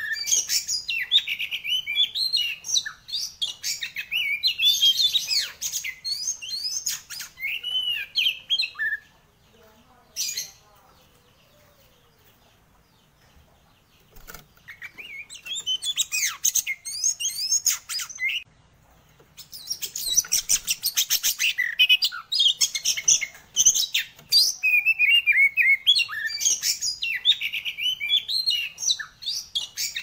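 Oriental magpie-robin (kacer) in full song: loud, rapid phrases of varied whistles, chirps and trills. The song breaks off for about five seconds a third of the way in, then resumes.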